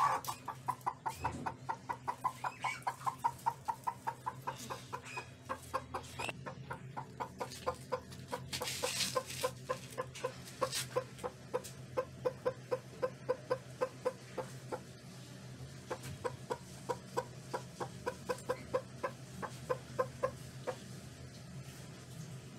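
Broody Aseel hen clucking in a steady run of short clucks, about four a second, as she sits on her clutch of eggs, pausing briefly about fifteen seconds in and stopping near the end. A short rustle comes about nine seconds in.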